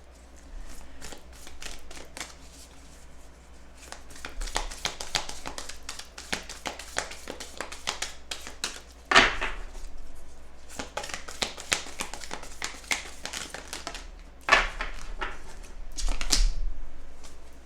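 Oracle cards being shuffled by hand: long runs of rapid flicking clicks, broken by a few louder swishes about nine, fourteen and sixteen seconds in.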